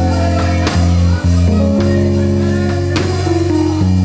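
Live gospel band playing without voice: held keyboard chords that change every second or so over a heavy bass, with drum hits about once a second.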